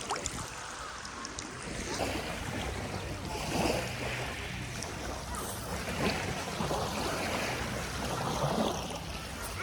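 Small lake waves washing on the shore, with wind buffeting the microphone as a low rumble.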